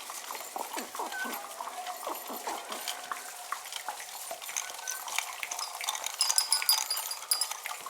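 Light clinking and tapping, like utensils or small hard objects knocking together, with a brief high ringing near the end.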